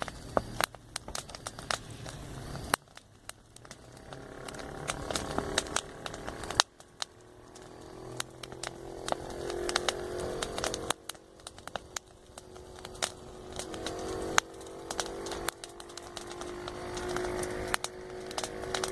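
Wood campfire crackling with frequent sharp pops, over an engine-like hum that swells several times and breaks off suddenly, fitting passing road traffic.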